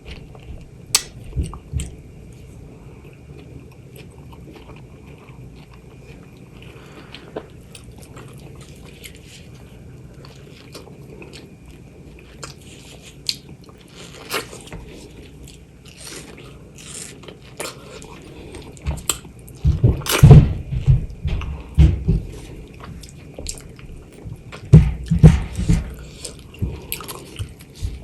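A person chewing and biting into juicy mango, in irregular bites and chews. It is sparse and soft through the first half, with the loudest bites in clusters about two-thirds of the way through and again near the end.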